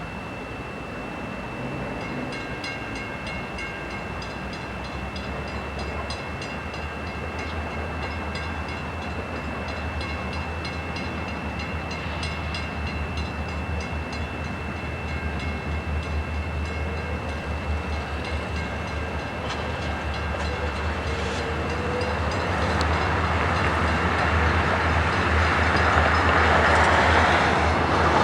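Diesel train approaching and growing steadily louder, with a deep engine drone and fast, regular ticking above it. A rush of wheel and rail noise swells over the last several seconds as it draws near.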